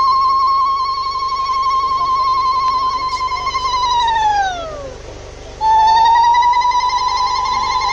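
A loud, high, siren-like tone held steady for about four seconds. It slides down in pitch and dies away, then starts again about a second later.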